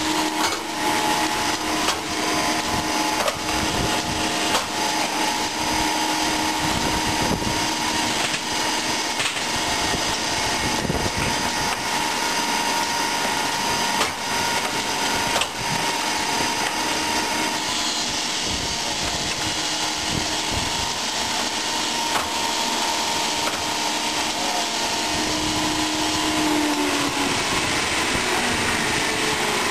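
Stone and marble cutting machine running steadily, a continuous mechanical noise with a steady hum, broken by scattered short knocks as the stone slabs are handled on it.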